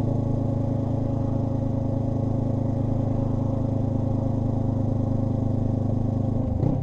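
Honda NX500's parallel-twin engine running steadily at constant engine speed through a Black Widow BC30T slip-on exhaust, its pitch unchanging; the sound cuts off shortly before the end.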